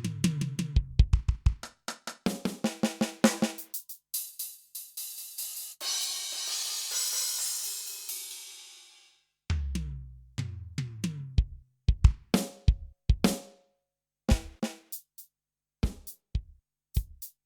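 Kurzweil K2000 factory drum-kit program played by hand on the keyboard: quick runs of drum hits, then a cymbal crash about six seconds in that rings out and fades over about three seconds. After a short gap come lower tom-like hits and then sparse single strikes.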